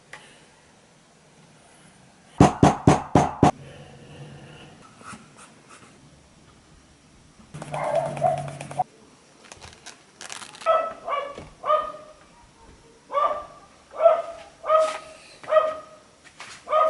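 A dog barking repeatedly in a series of short barks. Before the barking there are five quick, sharp knocks in a row, and a short noisy yelp or growl comes between the knocks and the barks.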